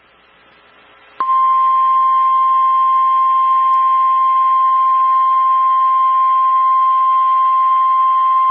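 NOAA Weather Radio 1050 Hz warning alarm tone: one loud, steady tone that starts about a second in and signals that a warning broadcast follows.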